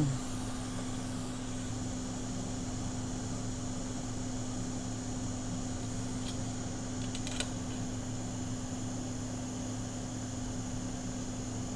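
Steady whirring hum of a fan-driven bench tool, a hot air rework station or fume extractor, with a low electrical drone. A few faint light ticks about six and seven and a half seconds in.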